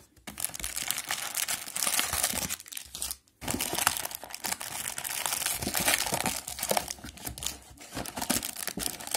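Trading card box packaging handled by hand: dense crinkling and rustling of wrapping and cardboard, with a brief pause about three seconds in.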